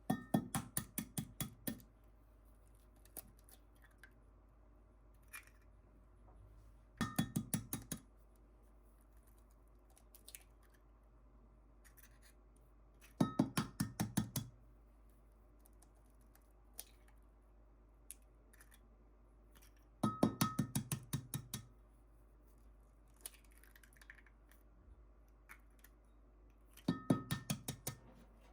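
Five short runs of quick, even clicking knocks, about ten a second, each run lasting a second or two and coming about every seven seconds.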